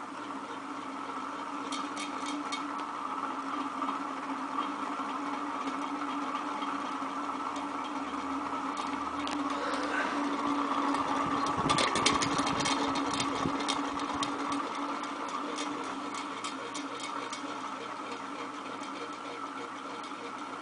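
Encon Princess 42-inch ceiling fan running with a steady hum, getting louder toward the middle and easing off again, with a run of clicks about halfway through. The fan's bearings are badly worn.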